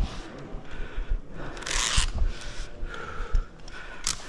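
A person breathing hard close to the microphone, with a short sharp exhale about every two seconds, over low knocks and rustling of gear.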